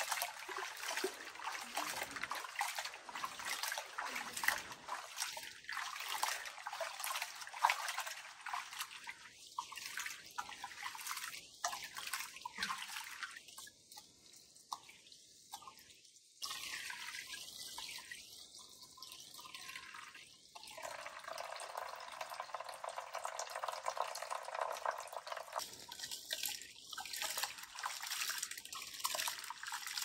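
Rice being washed by hand in a metal bowl of water: the grains are rubbed and swished, with splashing, dripping and trickling as the cloudy rinse water is tipped off into the basin.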